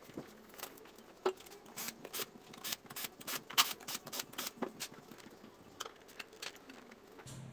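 Scattered light clicks and taps of a hex key working the small metal screws of an electric scooter's deck, and of loose screws being set down on a wooden bench, at irregular intervals.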